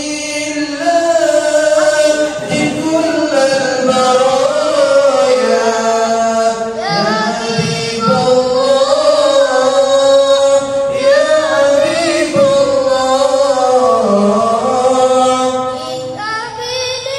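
A young boy singing an unaccompanied, melismatic Islamic devotional melody into a handheld microphone: long held notes that waver, bend and turn in ornaments, with brief breaths between phrases.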